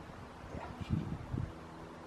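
Low wind rumble on the microphone, with a few soft rustling and handling noises about halfway through.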